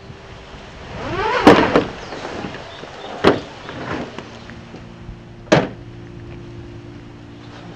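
Luggage being loaded into the bed of a pickup truck: a bag scrapes in and lands with a heavy thump about a second and a half in, followed by two sharper knocks against the truck bed, one around three seconds and one around five and a half.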